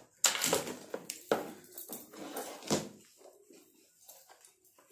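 A pearl-bead necklace handled close by: beads clicking and rattling against each other, with three sharper clicks in the first three seconds.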